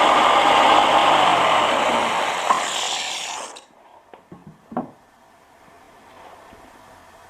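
A small electric motor running steadily with a rush of air, fading and cutting off about three and a half seconds in, followed by a few light clicks.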